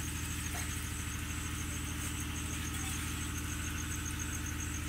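A small engine running steadily, an even low hum with a rapid regular pulse.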